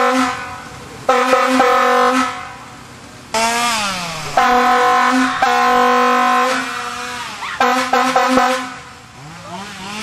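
Air horn sounded in a string of loud blasts, each about a second long with short gaps between, one sliding down in pitch about three seconds in.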